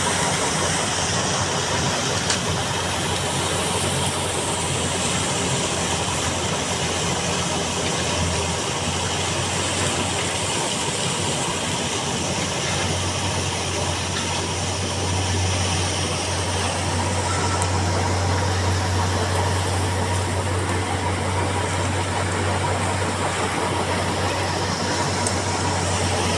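Steady low machinery hum with a broad noisy rush, like an engine running at idle; the hum grows stronger about halfway through.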